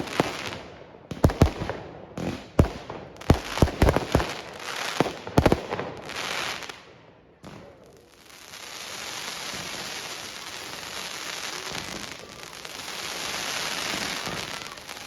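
Fireworks going off: a rapid run of sharp bangs and crackles for about seven seconds. After a brief lull the bangs give way to a steady hiss that continues to the end.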